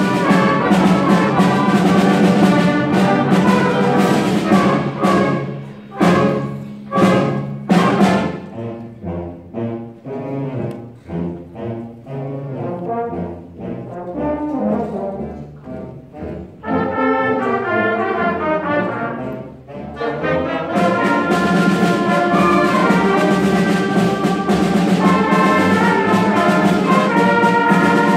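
A middle school concert band playing a march, with brass to the fore. The full band plays loud, then hits three sharp accents about six to eight seconds in. It drops to a softer, lighter passage and comes back in full about twenty seconds in.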